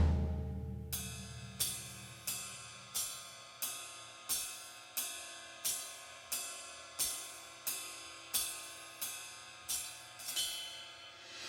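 Background music with a rock feel: a loud passage cuts off and dies away, then a lone cymbal is struck about every two-thirds of a second, each strike ringing out. The full band comes back in at the very end.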